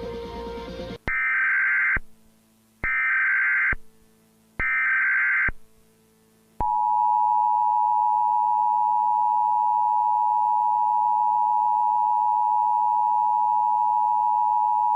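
Emergency Alert System tones breaking into music: three short buzzy bursts of SAME header data, about a second each, starting about a second in, then the steady two-tone EAS attention signal held for about eight seconds.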